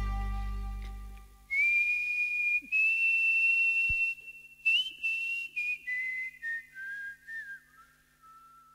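A band's last chord dies away, then a person whistles a short unaccompanied tune: long held high notes with small slides, then a run of shorter notes stepping down and fading out.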